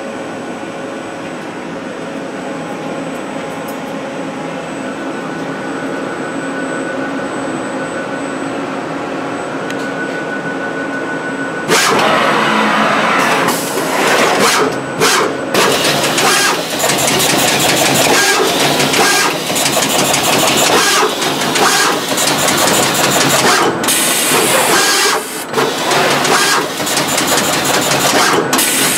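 Universal Instruments Advantis AX-72 SMT pick-and-place machine running production: a steady machine hum at first, then about twelve seconds in it turns much louder, with rapid hissing and clicking from the placement heads as they pick and place components.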